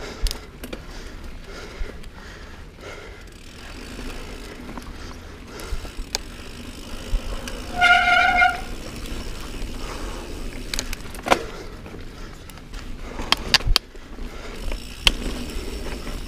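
Niner Jet 9 RDO mountain bike rolling fast over a dirt singletrack: a steady rush of tyre and wind noise with sharp knocks and rattles as it hits bumps and roots, and a brief pitched squeal about eight seconds in.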